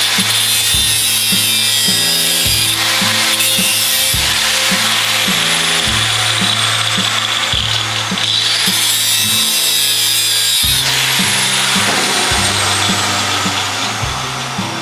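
A power tool working metal: a loud, harsh, steady grinding noise that shifts in tone a few times, over background music.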